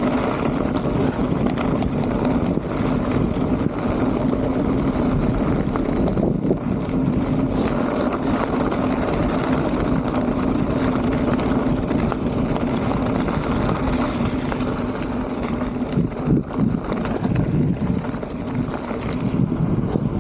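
Steady rush of wind over an action camera's microphone, with the rolling hum of mountain bike tyres, as the bike is ridden along at speed. A few short knocks from bumps come late on.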